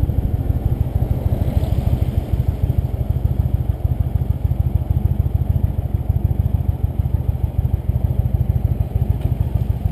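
Cruiser motorcycle engine running steadily, a low pulsing rumble heard from the bike itself.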